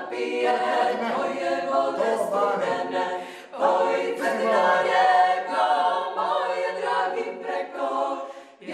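A women's klapa choir singing a cappella in close, several-part harmony. The voices break off briefly for a new phrase about three and a half seconds in and again near the end.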